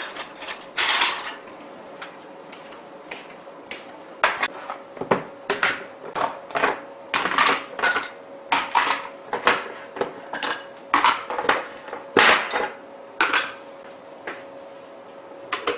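Dishes and kitchen utensils clattering in a string of irregular sharp knocks and clinks, over a faint steady hum.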